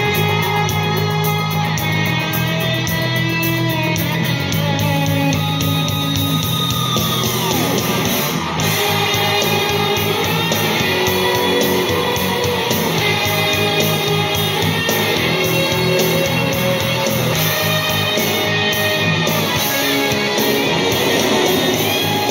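Rock music with electric guitar playing through a 50 cal ammo-can Bluetooth speaker fitted with Kicker marine speakers, turned up loud as a sound demo. About seven seconds in there is a long falling pitch glide.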